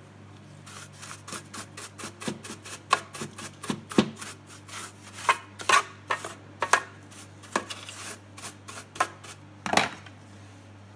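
Irregular clicks, taps and scrapes from a gloved hand working over the LED light fixture's circuit board, some sharp and loud, some faint, over a low steady hum.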